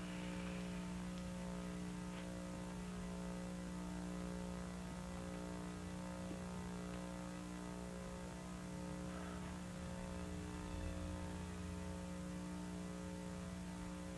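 Steady electrical mains hum, a buzz with many even overtones, over faint hiss; no other sound stands out.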